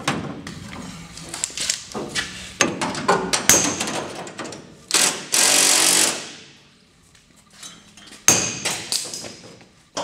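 Hammer blows on the sheet-metal floor pan and firewall of a 1957 Chevy Bel Air body, sharp ringing metal strikes in a quick irregular series, the panel bouncing back rather than moving. Around the middle there is a loud rushing noise about a second and a half long, then a few more strikes near the end.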